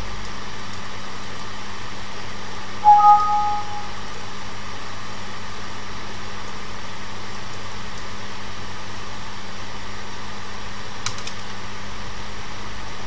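Steady hiss with a low hum from the recording's background noise, broken about three seconds in by a short electronic beep of two pure tones sounding together for under a second. A faint click comes near the end.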